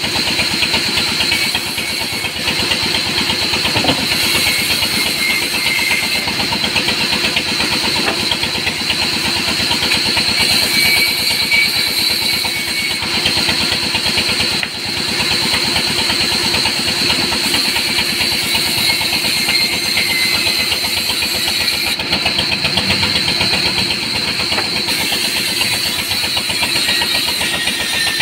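Large band saw running steadily and sawing a log into planks, a continuous machine drone with a steady high whine.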